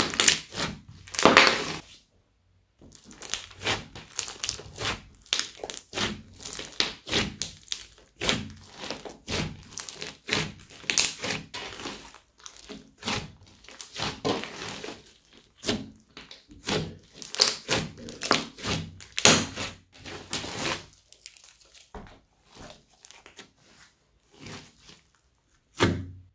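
Hands squishing, poking and stretching thick brown slime packed with small white foam beads: a run of irregular wet clicks and pops. There is a short pause about two seconds in, and the sounds thin out toward the end with one last sharp pop.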